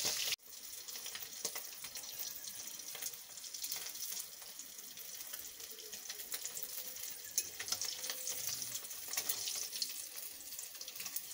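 Koi fish (climbing perch) frying in shallow oil in a steel wok: a steady crackling sizzle, with a few sharp clicks along the way.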